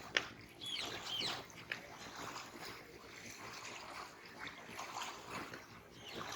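Small sea waves lapping and washing against the shore in repeated swells. A sharp click comes just after the start, and a few brief high chirps follow about a second in.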